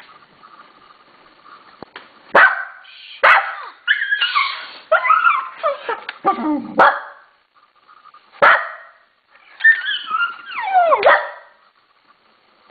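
A dog barking in single sharp barks, with runs of excited, whining yelps between them that slide down in pitch.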